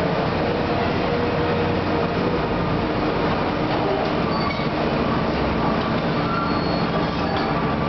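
Hitachi demolition excavator's diesel engine running steadily under load while its grapple works the rubble, with faint scattered clanks and short squeals from metal and debris.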